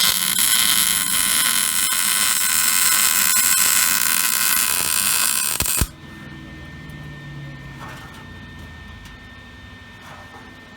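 Electric arc welding a bead on steel bracket plates: a steady, loud sizzling crackle for about six seconds that cuts off abruptly, followed by a much quieter steady background.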